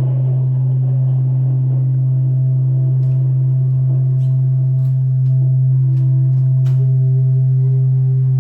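A loud, low ringing tone held steady in pitch and level, with fainter overtones above it. A few light clicks come between about three and seven seconds in.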